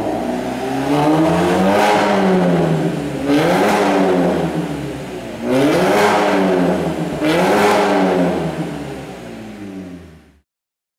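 BMW Z4 engine through a Giba sport exhaust, revved and let fall back about four times, each rev rising and dropping in pitch. The sound cuts off abruptly near the end.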